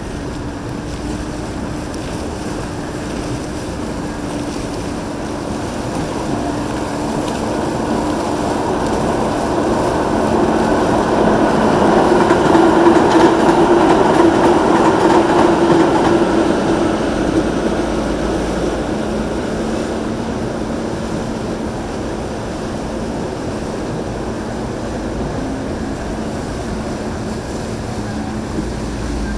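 Boat engines running steadily with the wash of water, a low even hum underneath. The sound swells louder about halfway through as a large motor yacht passes close by, then eases back to the steady drone.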